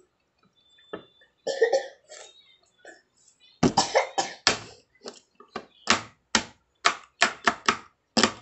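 A woman coughing in a rapid run of short, sharp coughs, about two a second, starting about three and a half seconds in, while she has food in her mouth. A few softer throat noises come before them.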